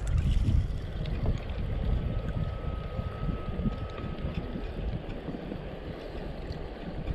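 Wind buffeting the microphone in a low, uneven rumble, with river water moving around the boat. A faint thin whistle-like tone is heard for a few seconds in the middle.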